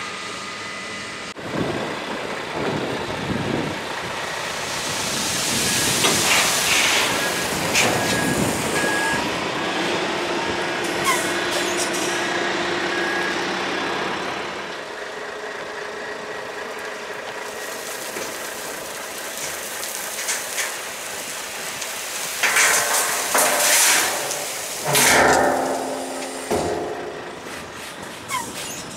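Diesel dump truck running at a construction site as it tips asphalt mix onto the runway base, with louder engine and hissing surges about a quarter of the way in and again near the end.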